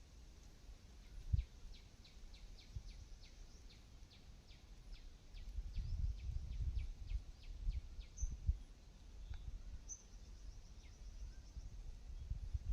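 Quiet rural outdoor ambience: a rapid series of thin, high ticking calls, about four a second, runs for the first six seconds, with two short high chirps later. A low rumble comes and goes in the second half.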